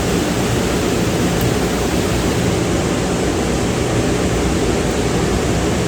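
Steady, even rushing noise with no pitched tone or knocks in it.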